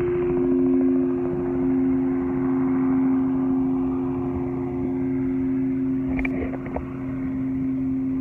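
Large gong played with a soft felt mallet, ringing in a steady low hum that swells and eases slowly. A few light knocks come about six seconds in.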